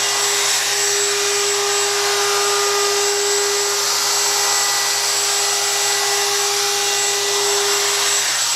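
Handheld router running steadily as it trims the sink opening in a solid surface countertop: a dense rush with a steady whine over it, the router's dust hose drawing air the whole time.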